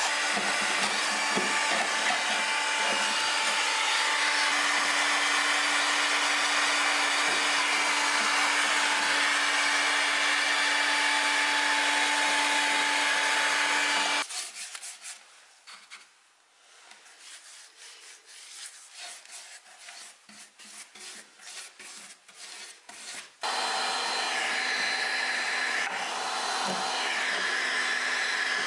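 Makita heat gun running with a steady blowing hiss and hum. It cuts off about 14 seconds in, leaving a stretch of light scraping and clicks, then comes back on about nine seconds later.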